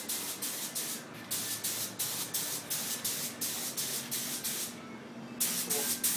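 Short spurts of paint-spray hiss in quick succession, about three or four a second, with a brief break about a second in and a longer one near the end.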